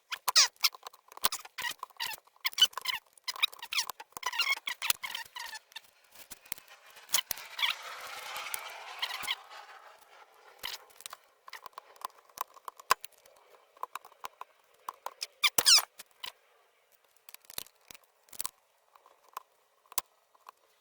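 Small metal parts of a Galil ACE's folding-stock hinge clicking, scraping and squeaking as the spring-loaded hinge pin is worked up through the holes of the hinge and brace. A longer stretch of scraping comes a few seconds in, and a cluster of sharp clicks near the end.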